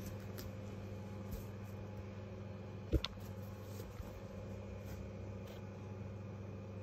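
Soft rustling and handling noise as plush toys are moved about by hand close to the microphone, over a steady low hum, with one sharp knock about three seconds in.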